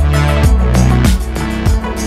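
Background music with a steady drum beat and a bass line.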